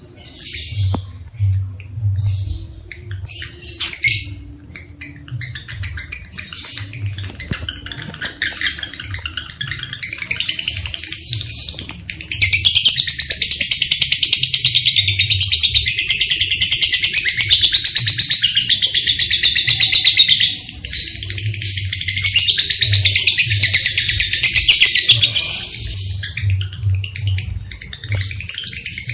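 Lovebird chattering: scattered high chirps at first, then a long, loud, very rapid chatter from about twelve seconds in to about twenty, and a second run after a brief break. Under it runs a low, rhythmic pulsing.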